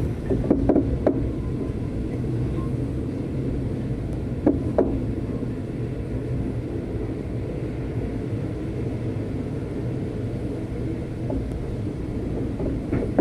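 Steady low rumble of a V/Line locomotive-hauled passenger train running along the track, heard on board, with a few short sharp knocks.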